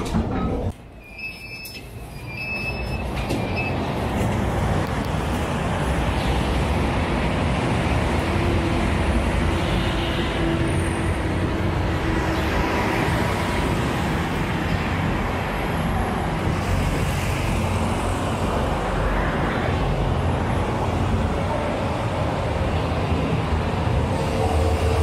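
PNR commuter train running past with a steady rumble, building up over the first few seconds.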